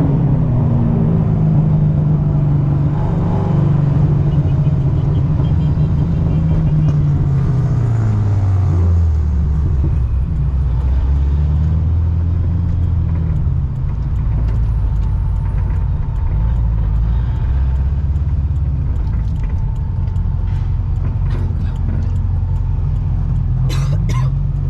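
Corvette C6's ProCharger-supercharged LS3 V8 running on the move. Its note falls steadily over the first several seconds as the revs drop, then settles into a low, steady drone.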